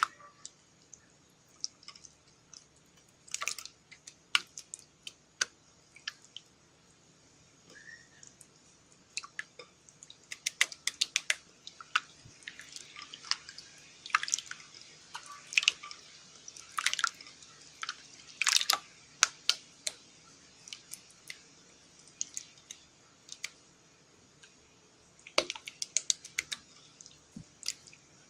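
Putty slime being kneaded and stretched by hand, giving irregular sticky clicks, pops and short squelches, thickest in the middle stretch and sparse near the start and end.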